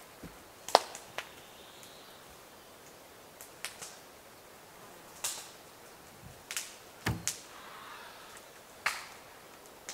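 Axe blows on a log: sharp, single knocks at an irregular pace, about nine of them, the loudest about a second in.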